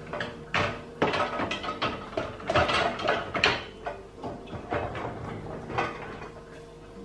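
Kitchen cupboard doors and drawers being opened and closed, a quick run of knocks and clatters that is loudest in the first half.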